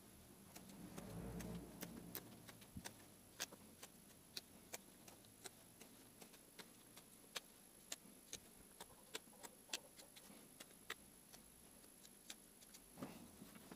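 Spoon-carving hook knife taking short cuts in the wooden bowl of a ladle: faint, sharp clicks at uneven spacing, about one or two a second, with a brief rustle of handling about a second in.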